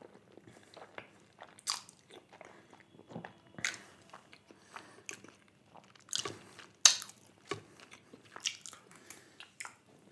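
A person chewing and biting white sauce chicken pasta close to the microphone: irregular mouth clicks and chewing noises, with a few louder ones about six to seven seconds in.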